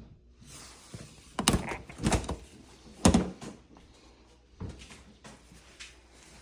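A door being handled: a few heavy thunks and knocks, three loud ones in quick succession starting about a second and a half in, then a softer one later.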